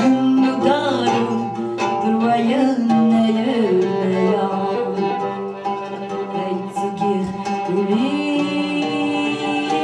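Folk song performed live: a singer's held, gliding melody over plucked and bowed string accompaniment.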